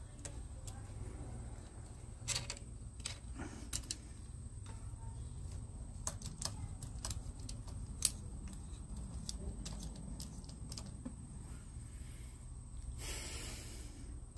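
Scattered small metallic clicks and ticks of a Husqvarna chainsaw's chain and a clamp-on hand-crank chain sharpener as the chain is advanced link by link and the jig is set, with one louder click about 8 seconds in and a short scraping rasp near the end.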